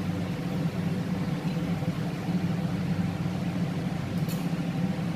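A steady low hum, with a faint even hiss above it.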